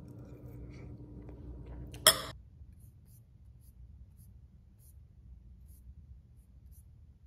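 A metal spoon clinks once sharply against a dish about two seconds in, with a brief ring, over quiet eating and a steady low hum. After it comes a very quiet stretch with faint, scattered light ticks.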